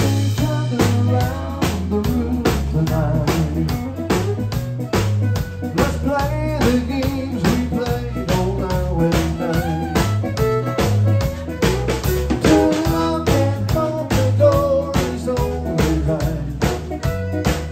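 Live band playing with a steady drum-kit beat and a walking electric bass line, a fiddle bowing a melody on top.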